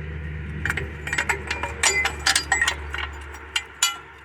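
Steel-on-steel clinks and knocks, a dozen or so with short metallic ringing, as a trailer hitch is fitted into the steel receiver on a mini skid steer's quick-disconnect plate. A low steady hum sits underneath and fades near the end.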